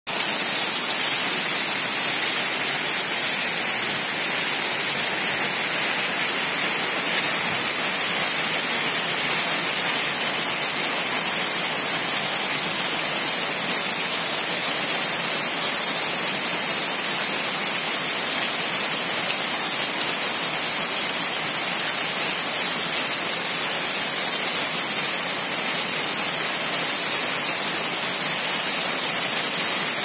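Heavy rain pouring down steadily on trees and ground, with water streaming off a roof's eave: an even, unbroken hiss.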